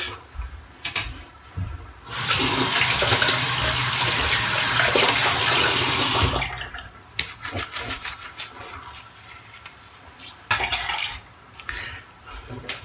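Bathroom tap running into the sink for about four seconds, turned on about two seconds in and shut off abruptly, as water is used to rinse between shaving passes. A few light clicks and a short splash follow.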